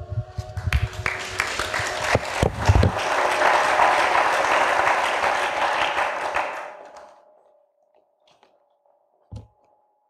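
Audience applauding in a lecture hall, dying away after about seven seconds; a single knock follows later.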